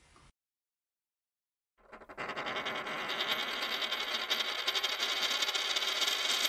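Outro logo sound effect: a dense, shimmering sound made of many fast tiny ticks, like a flurry of small metallic jingles, starting about two seconds in and growing slightly louder.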